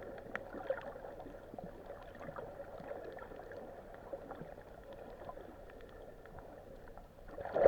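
Muffled underwater sound picked up by a hand-held camera: a steady dull wash with scattered faint clicks, and a short louder rush of water noise at the very end.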